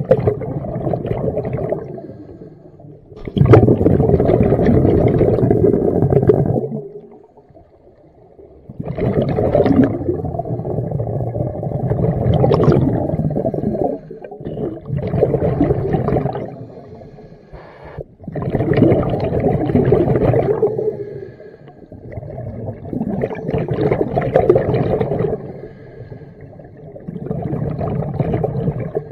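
Scuba diver breathing through a regulator underwater: a bubbling rush of exhaled air comes about every four to five seconds, with quieter gaps between the breaths.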